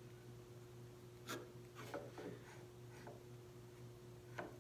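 Marking knife scoring short lines into wood to deepen hinge layout marks: a few faint scratching strokes, the first about a second in and the last near the end.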